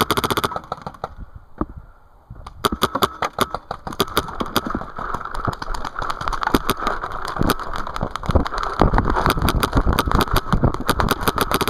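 Paintball markers firing in rapid strings of shots. A short burst comes at the start, then after a brief lull the shots run almost without a break from about two and a half seconds in.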